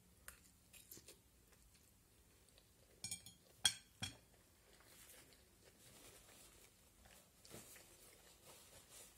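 Faint chewing of a mouthful of spaghetti, with a few sharp clicks about three to four seconds in. Soft paper napkin rustling near the end.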